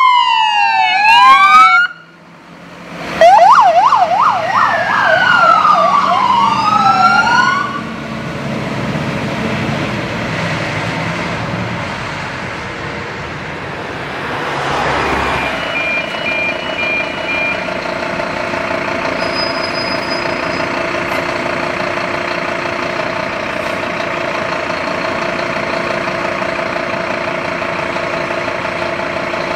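Scania CFA fire pumper's electronic siren: falling wails, a break, a rapid yelp, then more wails, stopping about eight seconds in. After that the truck's diesel engine runs steadily at idle.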